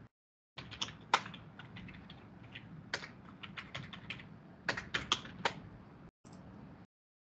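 Typing on a computer keyboard: a quick, irregular run of key clicks with a few harder strokes, stopping about six seconds in.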